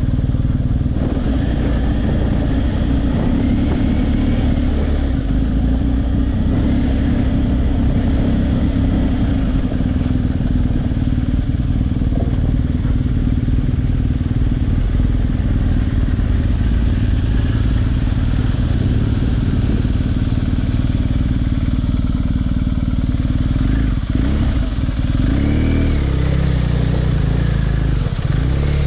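BMW R1250GS Adventure's boxer-twin engine running at low speed off-road, with steady loud engine noise and a change in revs a few seconds before the end.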